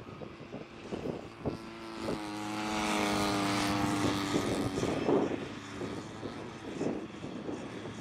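Engine of a Lazer 200 RC model airplane buzzing in flight, a steady pitched drone that swells loud for about two seconds midway as the plane comes nearer, then fades again. Gusts of wind buffet the microphone throughout.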